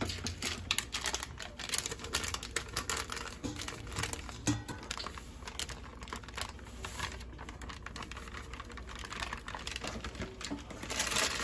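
Plastic inner bag of dry fish fry breading mix crinkling and rustling as the mix is shaken out into a stainless steel pot. A rapid run of small ticks is thickest in the first few seconds, then it quietens and picks up again near the end.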